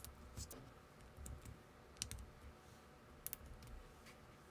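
Faint clicks and snaps of small plastic building bricks being handled and pressed together, about half a dozen scattered clicks with a sharp double click about three seconds in.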